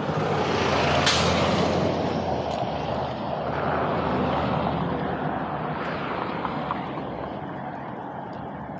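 A road vehicle going by, loud at first and slowly fading over several seconds, with one sharp click about a second in.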